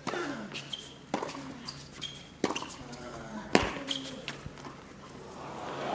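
Tennis ball struck back and forth with rackets in a rally on a hard court: several sharp hits about a second apart, with short high shoe squeaks between them. Crowd applause starts to swell near the end.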